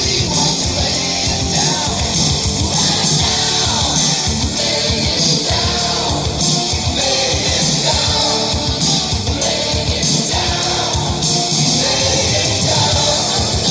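A rock song with singing and guitar and a steady beat, played loud through a pair of custom-built Bluetooth speakers outdoors.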